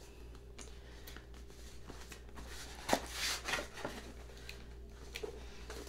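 Quiet rustling and small clicks from a cardboard box and its contents being handled while it is unboxed, with a louder rustle about three seconds in.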